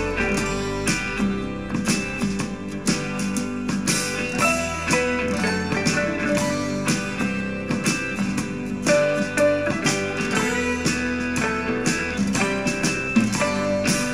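Country-folk music with plucked and strummed guitar, played through a Bluetooth speaker for a sound test.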